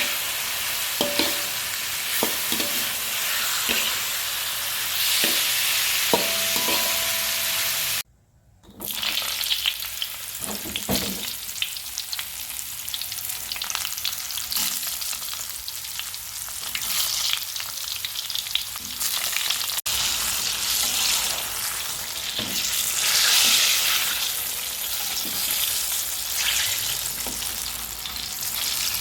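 Food frying and sizzling in hot oil in a pan while it is stirred, with scattered knocks and scrapes of a spatula against the pan. The sound drops out briefly about 8 s in, then the frying resumes.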